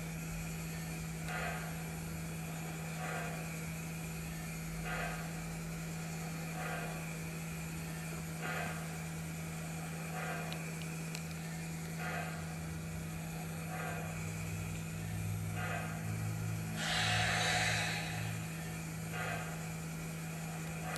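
Steady electrical hum from a running Lionel model-train layout, with a soft pulse of noise about every second and a half to two seconds, and a louder hiss for about a second some seventeen seconds in.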